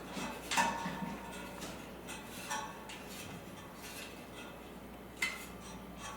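Scattered metallic clinks and taps of an Allen key working screws against a steel furniture frame as the screws are tightened. The loudest clink comes about five seconds in.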